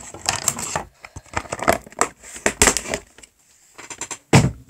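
Handling noise as plastic bottles and containers are picked up and put away on a table: irregular clicks, knocks and short rustles, with a heavy thump near the end.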